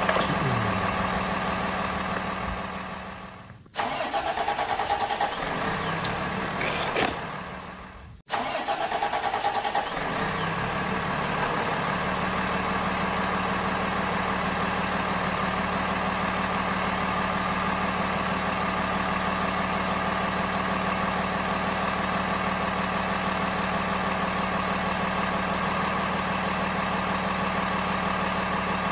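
Truck engine sound effect idling, with a steady drone. It cuts off abruptly twice in the first eight seconds, then runs on unbroken.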